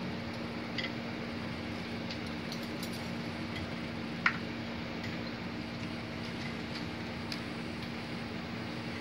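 Steady low background hum with a few light clicks and taps as whole spices are dropped into a plastic bowl, the sharpest click about four seconds in.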